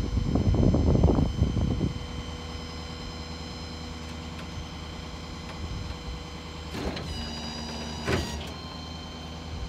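Rollback tow truck's hydraulic and winch system running with a steady whine while a car is lowered down the tilted bed. A burst of rough noise fills the first two seconds, and two metallic clunks about a second apart come near the end as the whine changes.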